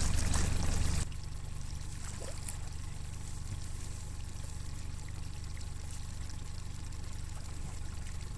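Water trickling and lapping beside a small boat, over a steady low hum. The sound drops suddenly in level about a second in, then stays steady.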